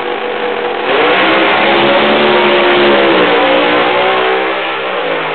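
Two doorslammer drag cars launching at full throttle about a second in, their engines blasting down the strip. The engine note falls twice as they run away down the track.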